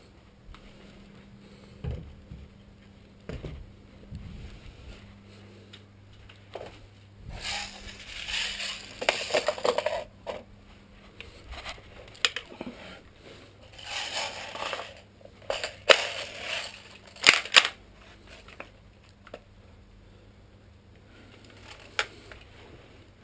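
Tokyo Marui SR-16 electric airsoft rifle firing: scattered single sharp shots and short clusters of rapid shots, the loudest bunched around the middle of the stretch.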